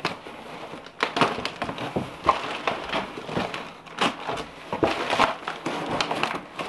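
Cardboard box and its packing being handled and pulled about: irregular crackles, scrapes and knocks of cardboard.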